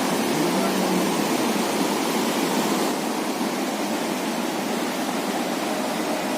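Steady rushing roar of falling water from the Sipiso-piso waterfall.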